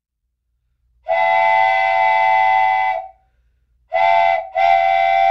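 Steam train whistle sounding several notes at once, blown three times: a long blast of about two seconds, a short one, then another long one.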